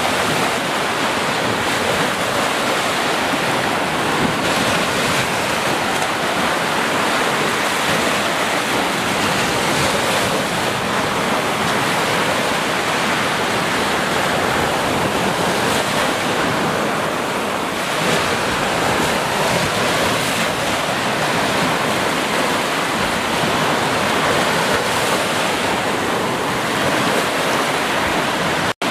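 Ocean surf: small waves breaking and washing up the beach as white foam, a steady wash of noise, with a split-second dropout near the end.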